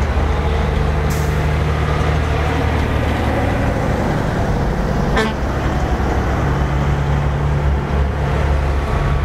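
Heavy diesel logging trucks passing close by one after another, their engines running with a steady low drone. A short hiss of air, such as an air brake, comes about a second in.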